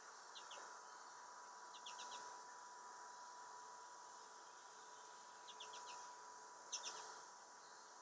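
American goldfinches calling: four short runs of two to four quick, high chirps, the run near the end the loudest, over a faint steady hum.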